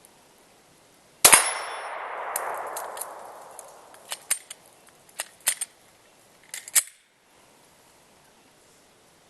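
A single pistol shot from a Glock 20SF firing .38 Super through a conversion barrel, about a second in, with a fading tail lasting about two seconds. Several small sharp clicks follow over the next few seconds.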